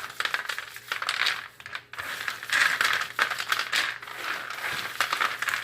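Oven-roasted peanuts being rubbed together to strip their skins: the dry papery skins crackle and rustle and the nuts click against each other. It comes in three bouts with brief pauses between them.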